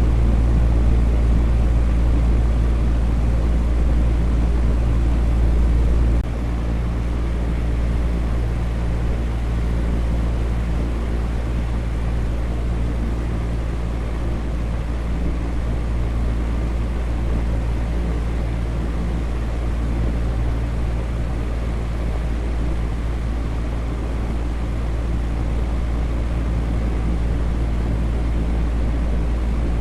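Electric fan running steadily: a constant whooshing noise with a deep low hum beneath it, the hum dropping a step about six seconds in.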